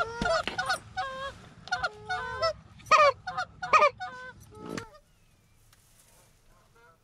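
Geese honking: a rapid run of loud, overlapping honks that bend and break in pitch. The calling cuts off suddenly about five seconds in, leaving only faint sound.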